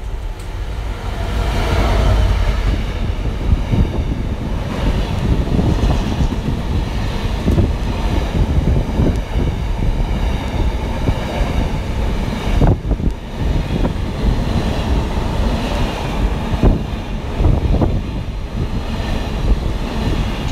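A diesel locomotive passes close, loudest about two seconds in. Then a long intermodal container train rolls by with a steady rumble of wagon wheels on the rails and a few sharp knocks as the wheels cross rail joints.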